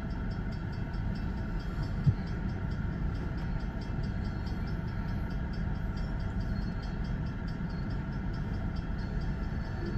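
Diesel switching locomotive running at low throttle as it slowly shoves a cut of covered hopper cars, with a steady low rumble. A single faint click comes about two seconds in.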